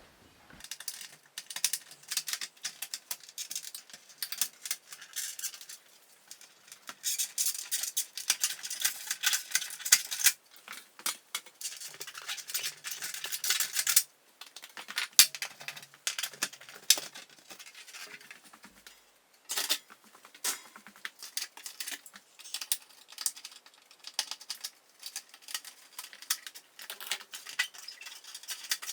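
Irregular metallic clicks, clinks and rattles of old fluorescent light fixtures being taken down by hand, with a few longer stretches of dense rattling.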